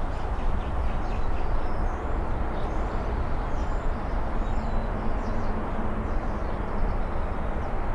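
Steady low outdoor rumble with faint birds chirping high above it.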